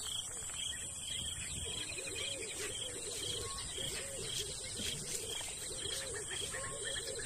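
Natural bush ambience. A steady high insect drone runs under a regular high chirp that repeats a couple of times a second. Low, wavering cooing bird calls come in about two seconds in.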